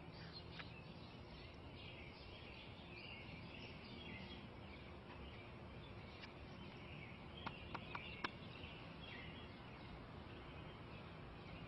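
Faint background of small birds chirping, with a quick cluster of four light clicks a little past the middle.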